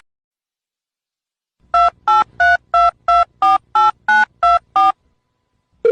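Ten telephone keypad touch-tones in quick succession, about three a second, each a short two-note beep, starting about a second and a half in: a number being dialled.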